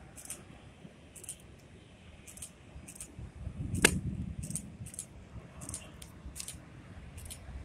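Faint, distant jet rumble of a Boeing 747-400 rolling out after touchdown, swelling for a moment a little over three seconds in. A sharp click about four seconds in is the loudest thing, and short high ticks come every half second or so.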